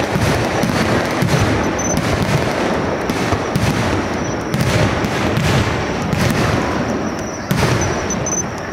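Aerial firework shells bursting in a dense, unbroken barrage, many booms and sharp cracks overlapping. It eases a little near the end.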